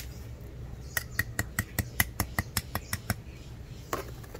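A quick, even run of about ten sharp clicking taps, roughly five a second, each with a slight ring, starting about a second in; a few more clicks follow near the end.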